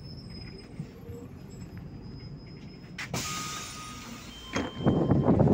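MAZ city bus's engine idling at a stop, a low steady rumble. About three seconds in comes a click and a brief hiss of compressed air from the bus's pneumatics. Loud, irregular buffeting follows near the end.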